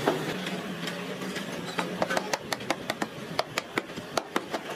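A quick, uneven run of more than a dozen sharp taps, about five a second, starting a little under two seconds in, over a low steady hum that fades out around the time the taps begin.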